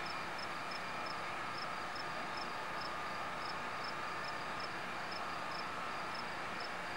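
A steady mechanical hum, likely from a nearby idling vehicle, with an insect chirping in a regular rhythm, nearly three chirps a second.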